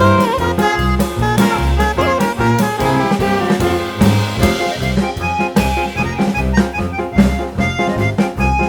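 Background music: an upbeat jazz tune with a steady beat, brass or saxophone leading over a walking bass and drums.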